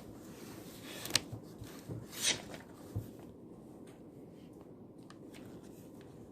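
Quiet study-desk room tone with small handling sounds: a sharp click about a second in, a short rustle just after two seconds, and a soft knock at about three seconds.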